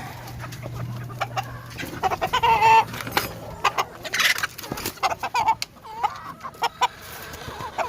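Gilmore hatch gamefowl clucking in short calls, among many sharp clicks and taps and a brief scuffle of noise near the middle.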